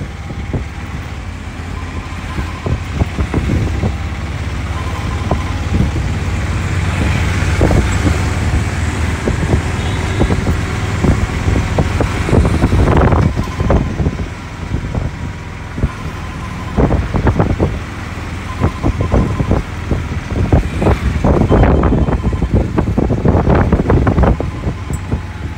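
Road and traffic noise while riding along a city street: a steady low engine hum under a rushing noise, with irregular louder surges, strongest about halfway through and again near the end.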